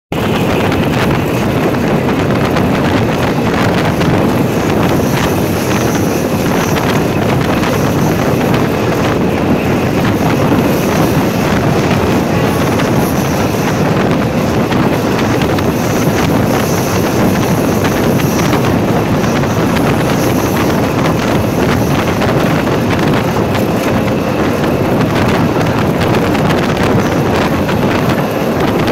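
Steady, loud rush of wind buffeting the microphone at the open door of a moving passenger train, mixed with the train's running noise on the rails.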